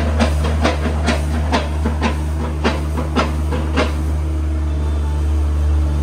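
Farm machine engine running with a steady low drone, with sharp knocks about twice a second that stop about four seconds in.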